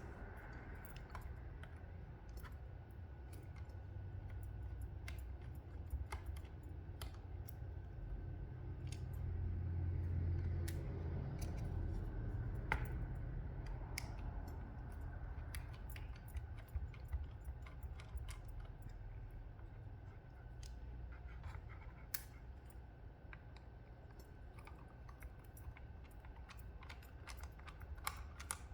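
Small screwdriver and screws clicking and scraping against the metal caddy of a laptop drive as the screws are taken out. The clicks come irregularly, several a second at times, over a low rumble of handling.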